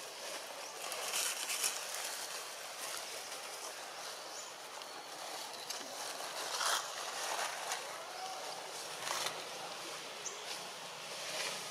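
Outdoor background noise, a steady hiss, with a few short rustles about a second in, near the middle and about nine seconds in.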